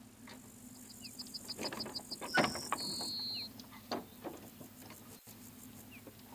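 Metal latch and old wooden plank door being worked open: scattered clicks and rattles, with one louder clank about two and a half seconds in. Short high bird whistles sound faintly in the background.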